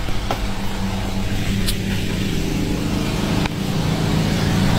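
A steady low mechanical hum, like a running motor, with a couple of faint ticks.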